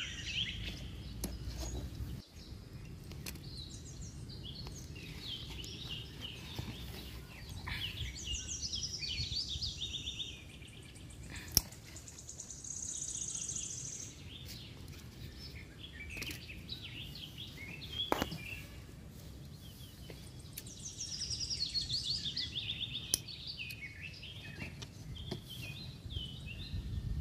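Small birds chirping and twittering in repeated short bursts, over low background noise, with a couple of sharp clicks.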